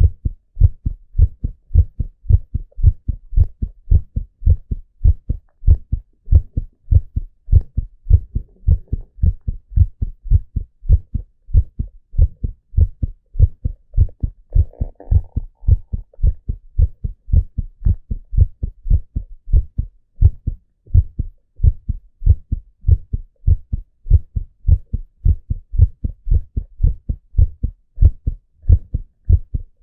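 A man's heartbeat picked up close at the chest: a steady, regular lub-dub, each beat a pair of short low thuds.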